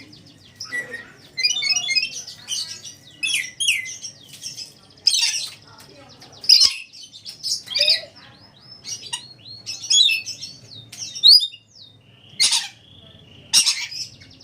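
Red lory calling: several loud harsh squawks among rapid high chirps and short whistled trills.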